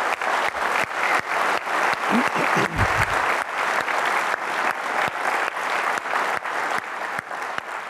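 Audience applauding: many hands clapping together, starting to fade near the end.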